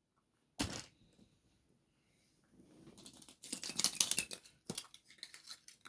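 Wrapping of a surprise egg being handled: one short sharp rustle about half a second in, then a run of crackling and tearing as the wrapper is torn open.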